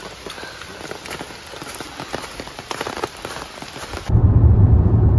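Steady rain falling on a camper trailer and the surrounding woods, an even hiss with scattered drop ticks. About four seconds in it cuts off abruptly to a steady, louder low road rumble from inside a moving car.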